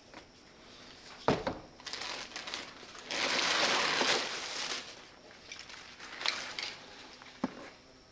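Packaging handled during unboxing: a single knock about a second in, then a second and a half of plastic wrapping rustling and crinkling, and a few light clicks and taps near the end.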